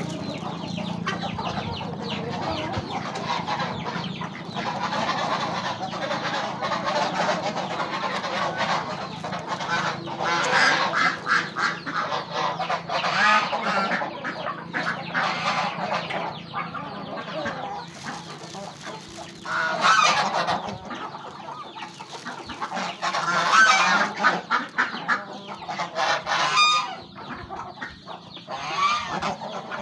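Domestic geese honking among a feeding flock of ducks and chickens. The calls overlap continuously and come in several louder bouts.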